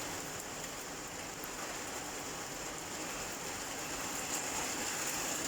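Heavy rain pounding down, a steady hiss of rainfall with faint scattered drop ticks.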